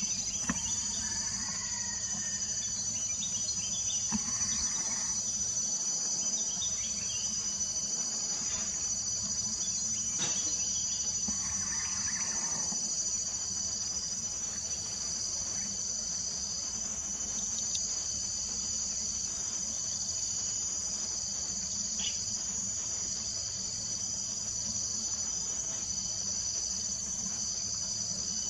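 Steady, high-pitched chorus of forest insects, with one strand pulsing on and off in a slow, regular rhythm.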